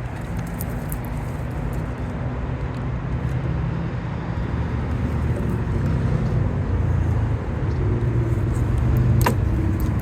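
A motor vehicle's engine runs steadily nearby, growing somewhat louder toward the end, with one sharp click about nine seconds in.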